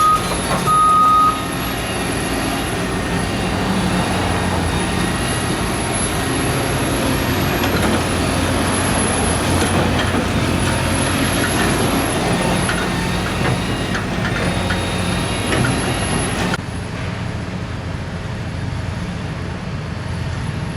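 Steady engine and road noise from trucks and traffic, with one short reversing-alarm beep about a second in. The noise drops off abruptly near the end.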